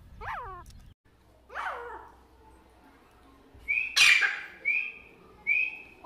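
Grey francolins calling: two short calls that fall steeply in pitch in the first two seconds, then three short high whistled notes about a second apart. A brief loud burst of noise comes about four seconds in.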